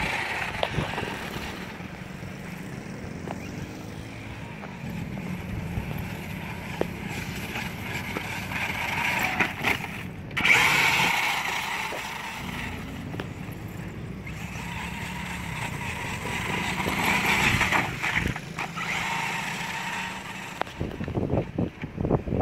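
Axial Yeti Score RC trophy truck's electric motor and drivetrain whining as it races over loose dirt, rising and falling in pitch as it speeds up and slows. It swells louder several times, most of all about ten seconds in.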